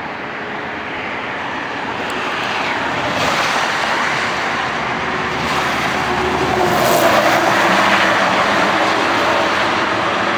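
Road traffic passing close by on a highway: vehicle engine and tyre noise that swells to its loudest about seven seconds in, then eases off a little.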